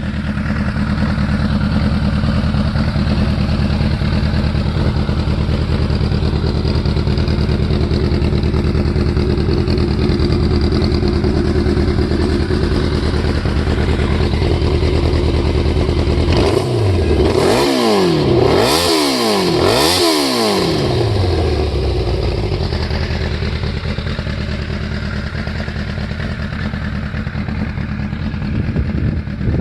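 1995 Suzuki GSX-R750's inline-four engine on its stock exhaust, idling steadily. About two-thirds of the way through it is revved three times in quick succession, each rev rising and falling back, then it settles to idle again.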